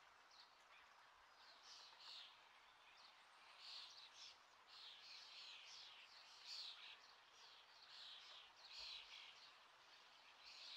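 Near silence: faint room tone with faint, irregular high chirps throughout.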